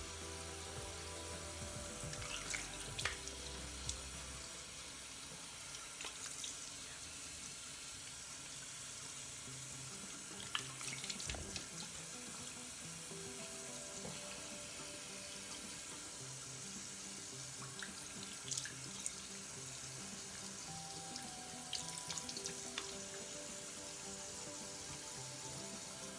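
Water tap running steadily into a bathroom sink, with occasional splashes as water is scooped onto the face to rinse it.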